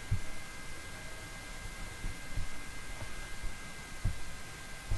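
Room tone on a desktop recording microphone: steady hiss with a faint high-pitched electrical whine, broken by a few soft, low knocks.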